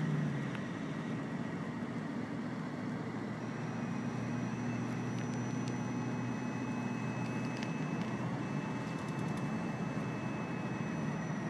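Steady road noise heard from inside a car's cabin while driving at highway speed: tyres on asphalt and the engine running.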